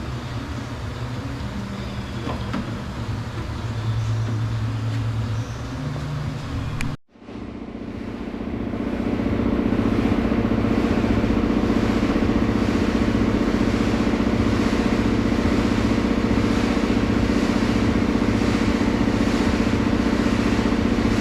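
Steady motor-like hum; about seven seconds in it cuts out abruptly and gives way to a louder steady drone.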